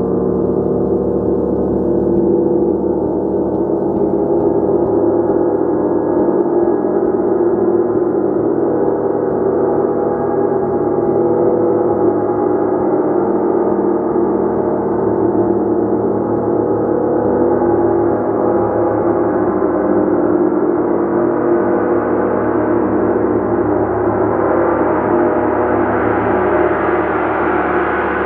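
Gong played in a continuous, sustained wash of many overlapping tones, with no separate strikes standing out, growing brighter in the last several seconds.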